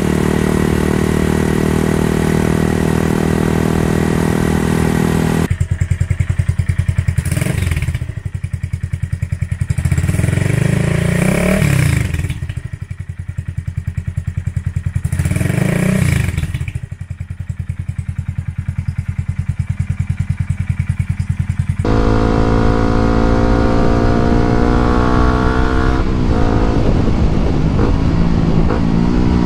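Three 125cc single-cylinder motorcycle exhausts in turn. First a Honda Grom runs steadily through a Yoshimura R-77S muffler. From about five seconds in, a Grom with a cheap auction-bought muffler idles with a pulsing beat and is revved three times, a pechi-pechi, piyo-piyo note that cuts off crisply. From about 22 seconds in, a Suzuki GSX-R125 runs steadily through a muffler of unknown make.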